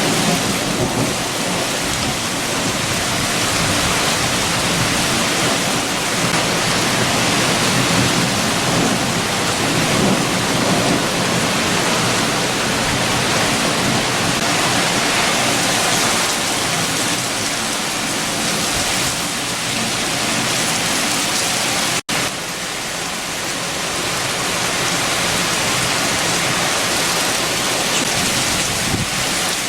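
Steady heavy rain with strong wind, a dense continuous hiss of rain falling on surfaces. It cuts out for a split second about two-thirds of the way through, then carries on.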